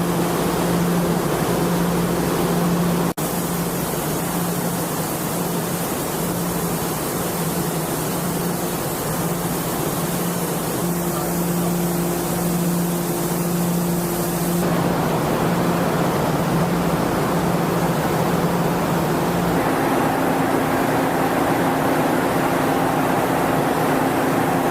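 Steady, loud mechanical roar with a low droning hum. The hum's pitch and the roar's tone change abruptly about 3, 15 and 20 seconds in.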